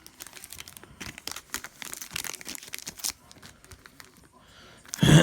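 Crinkling and rustling of a trading-card pack's foil wrapper being handled and torn open, made up of many quick scratchy rustles. A man's voice starts right at the end.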